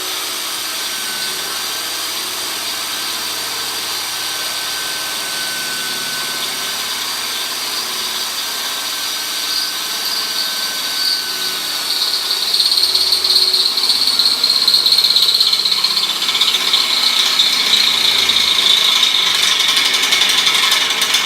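Electric drill boring into quarter-inch steel plate: the motor runs steadily while a high, grinding cutting whine grows louder about twelve seconds in. The bit is dull and cuts slowly.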